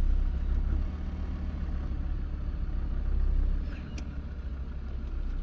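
Land Rover Defender engine idling steadily while the vehicle is stopped, a low, even rumble. A single sharp click comes about four seconds in.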